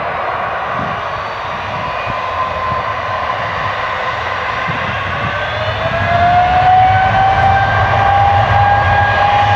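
Boeing 777-200's GE90-94B turbofan engines running and spooling up for takeoff: a whine rises about halfway through and settles into a steady high tone as the engine noise grows louder.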